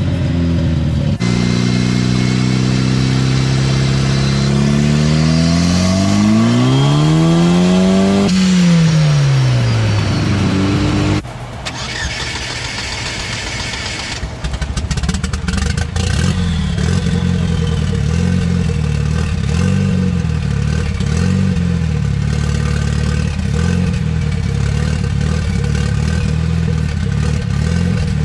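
Turbocharged GM Ecotec four-cylinder engine on a chassis dyno, revving up smoothly for several seconds and then winding back down. After a cut about 11 seconds in it idles steadily, heard close up under the open hood, with a few light throttle blips.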